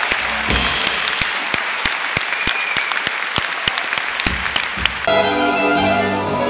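Concert hall audience applauding with many sharp individual claps. About five seconds in the applause breaks off abruptly and an orchestra with strings starts playing sustained chords.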